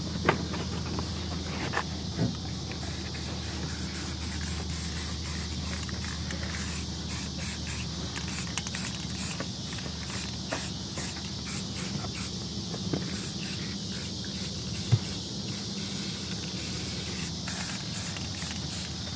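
Aerosol spray-paint can spraying in many short hissing bursts.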